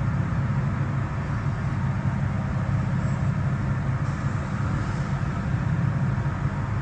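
Steady low mechanical rumble, even and unbroken, with no separate knocks or strokes.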